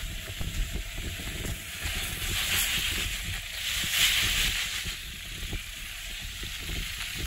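Suzuki Jimny's 1.5-litre four-cylinder petrol engine working under load as the 4x4 climbs a steep, loose sandy slope, with a rough rumble and a hiss of tyres on sand and grit. The hiss swells and the sound is loudest about four seconds in, as the vehicle comes close.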